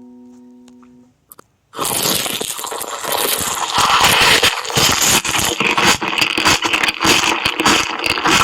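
A held bell-like musical tone fades out, then after a couple of clicks a loud, dense crunching and crackling noise starts about two seconds in and keeps going.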